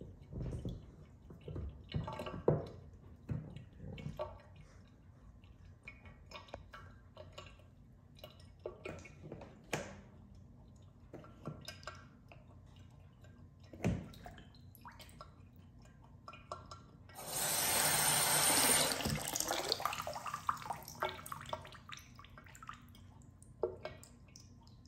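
Bath water splashing and dripping in small, scattered sounds; past the middle the bathtub faucet runs for about two seconds, the loudest sound here, then trails off to drips.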